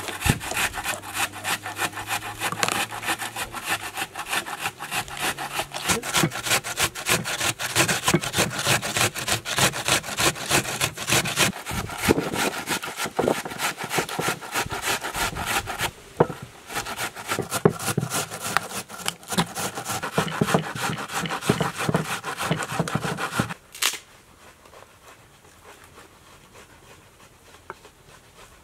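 A red onion being grated on a handheld metal grater: rapid, regular rasping strokes with a brief pause partway through, then they stop.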